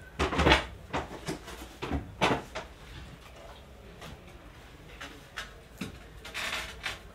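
Several sharp knocks and clatters in the first three seconds, then lighter knocks and a longer scrape near the end: large porcelain tile slabs being handled and shifted against one another.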